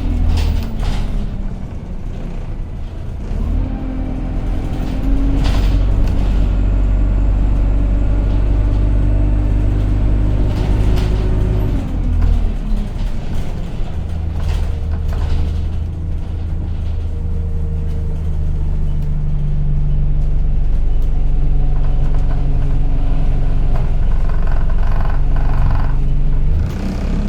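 Engine of a Dennis Enviro200 single-deck bus heard from inside the saloon, running loud with the whine that gives the bus its 'loud hoover' name. It pulls away and rises in pitch, drops off about twelve seconds in, then climbs again through the gears. Short rattles and clicks from the bus body come through along the way.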